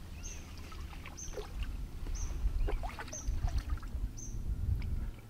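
Shallow river water splashing and sloshing around a landing net holding a freshly netted chub, over a low rumble. A small bird calls a short, high chirp about once a second.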